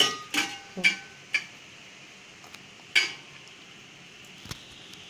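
Stainless steel mixing bowl clinking and ringing briefly as grated tapioca and coconut are tossed together in it by hand. There are about five sharp clinks in the first three seconds, then only a few faint taps.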